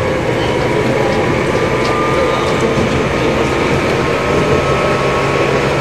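Keikyu old 1000 series electric train running, heard from inside the car: a steady rumble of wheels on rail with a faint, level whine from the motors and gearing, unchanging in pitch.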